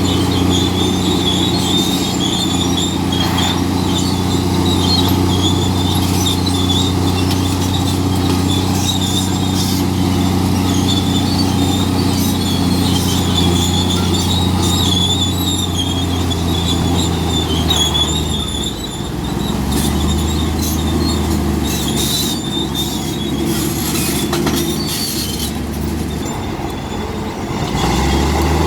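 Komatsu D65P crawler bulldozer working: its diesel engine runs steadily under load while its steel tracks give a continuous wavering high squeal. The engine note drops and picks up again about two-thirds of the way through and once more near the end.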